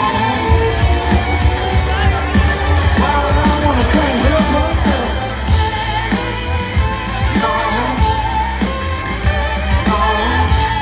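Live rock band playing loudly: electric guitar over heavy bass and drums, with some singing.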